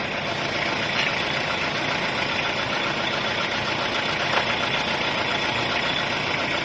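A 1997 Hyundai Starex van's diesel engine idling steadily. This engine fails its emission test for thick black smoke.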